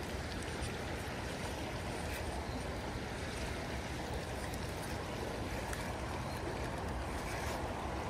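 Steady rushing of a fast-flowing creek running over riffles.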